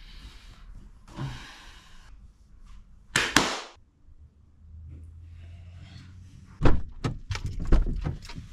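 A loud whoosh about three seconds in, then a low steady hum, and near the end a quick run of sharp knocks and thumps.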